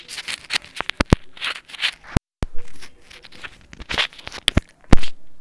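Close-up mouth sounds into a wired earbud microphone held at the lips: a run of sharp clicks, crackles and short hisses, with the sound cutting out for a moment about two seconds in.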